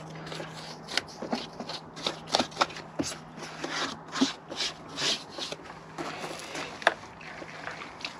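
Bristle brush scrubbing surfaces in a car's engine bay, an irregular run of short rubbing strokes about two or three a second. There is a sharper knock near the end.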